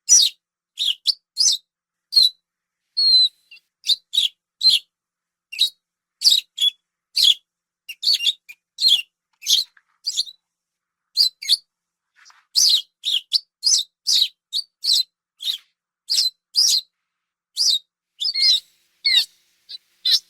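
Otter chirping: a long series of short, high squeaks, one or two a second, separated by brief pauses.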